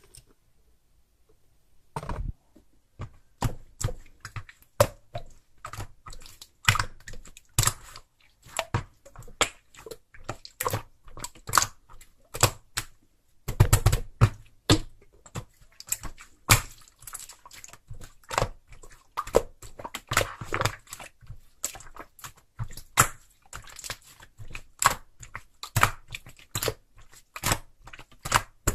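A rapid, irregular run of sharp clicks and taps in a small room, starting about two seconds in, with a few louder knocks among them.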